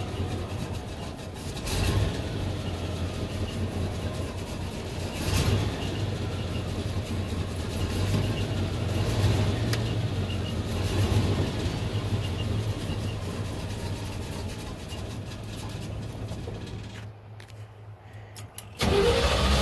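A 1975 Chevrolet C10's factory 350 V8 idling, heard from inside the cab, with a few brief louder moments. Near the end a louder, steady whir with a rising whine starts suddenly.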